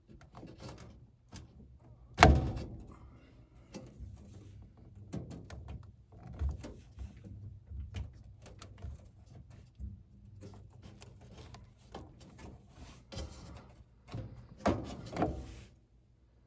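Hand-work on a gas furnace: scattered clunks, knocks and rustling as parts are fitted back on, with one sharp knock about two seconds in and a cluster of knocks near the end.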